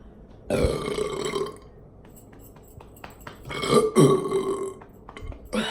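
A person letting out two long, loud burps about three seconds apart, the second the louder, then a short burp at the end. The burps come from gas after drinking two cans of Sprite.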